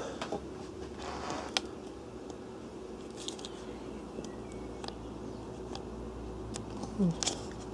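Quiet room tone with a faint steady hum and a few faint clicks, and a brief low sound about seven seconds in.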